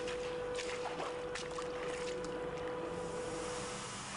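Footsteps splashing through shallow water on a flooded tunnel floor, a few slow steps, over a steady hum.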